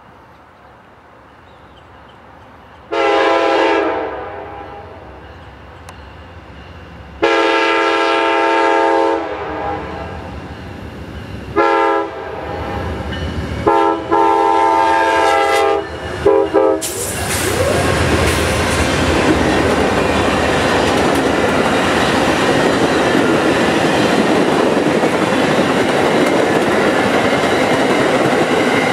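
Amtrak passenger train's locomotive horn blowing the grade-crossing signal of long, long, short, long blasts, with a brief extra tap at the end. The GE P42DC Genesis diesel locomotives then pass close by, followed by a steady rumble and clickety-clack of the passenger cars' wheels on the rails.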